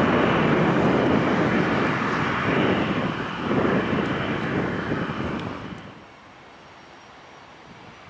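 Jet engines of a Southwest Airlines Boeing 737, loud as it rolls past at speed on the runway. About six seconds in the sound drops to a much fainter, steady jet rumble from a distant Southwest Boeing 737-700 departing.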